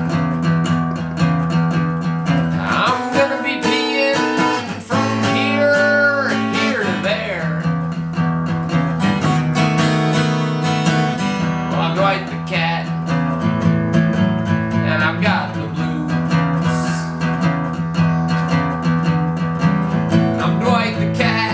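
Cutaway dreadnought acoustic guitar strummed steadily in a blues, with a man's voice singing short wavering phrases along with it at a few points.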